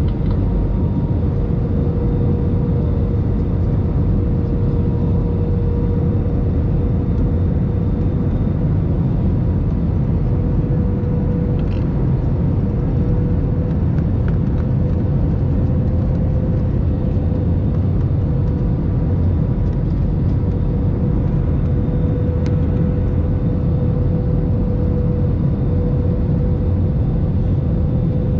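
Steady cabin noise of a jet airliner in flight: a low rumble of engines and airflow with a steady mid-pitched hum over it.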